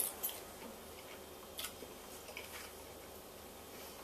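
Quiet eating sounds: a man chewing a bite of crumbed chicken schnitzel, with a few light clicks of the metal fork, the sharpest right at the start as it leaves his mouth and another about one and a half seconds in.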